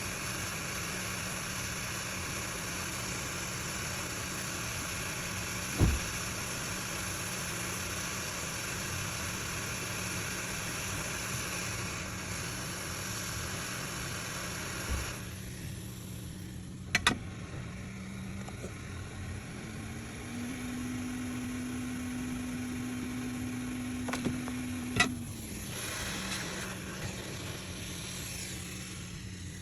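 Hot-air rework station blowing with a steady hiss over a low hum, during reballing of a phone display IC chip. The hiss stops about halfway and returns near the end. A few sharp clicks sound, and a steady low tone holds for several seconds in the second half.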